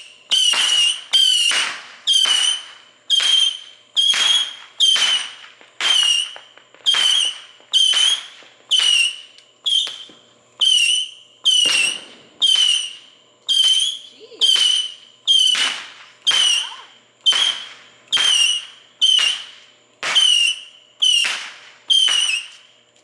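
A firework giving off short, shrill whistles one after another, about two a second. Each whistle starts sharply and fades quickly.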